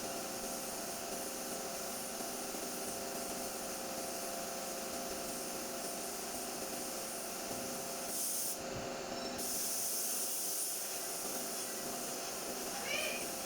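Steady air hiss, most likely a spray gun in use, breaking off for about a second some eight and a half seconds in, over a steady hum.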